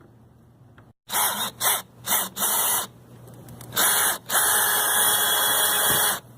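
Power drill driving screws through the fan flange into the van roof: several short runs, then one longer run of about two seconds that stops abruptly.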